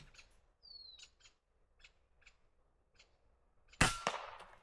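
A single moderated rifle shot near the end: a sharp crack with a short ringing tail. Before it there are a few faint clicks and a short falling whistle about a second in.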